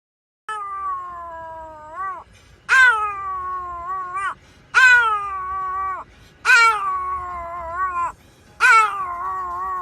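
A cat giving five long, drawn-out meows about every two seconds, each starting loud and sliding down in pitch before turning upward at the end.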